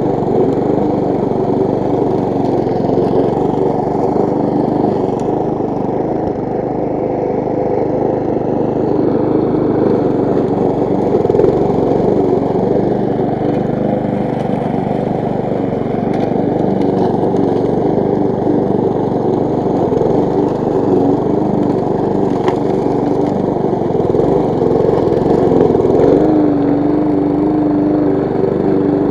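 Walk-behind rotary lawn mower's Briggs & Stratton single-cylinder petrol engine running steadily under load while cutting grass.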